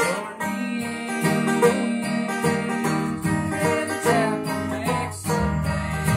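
An acoustic string band plays an instrumental passage with no singing: a plucked upright bass and an acoustic guitar under a picked banjo lead, in an old-time bluegrass style.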